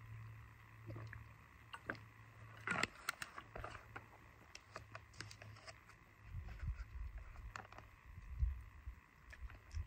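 A canoe being handled at the water's edge: scattered knocks and clicks against the hull, the sharpest about three seconds in, then low thuds in the second half.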